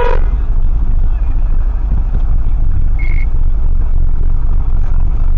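Heavy semi-truck with an empty triple-axle container chassis trailer rumbling past close by, a dense low drone of engine and tyres. A horn blast cuts off at the very start, and a short high beep sounds about three seconds in.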